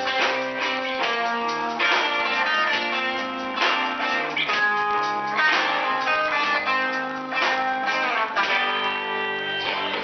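Live rock band playing: electric guitars strumming over a drum kit, with steady drum hits throughout.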